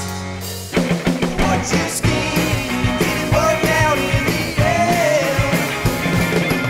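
Rock band music with electric guitar and drums: a held chord rings briefly, then the full band comes in under a second in.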